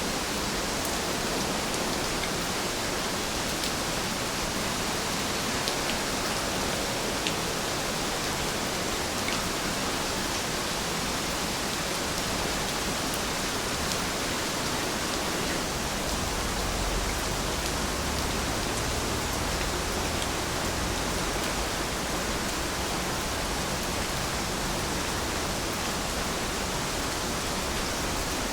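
Steady rain falling, an even hiss with faint scattered drop ticks, and a low rumble from about seventeen to twenty seconds in.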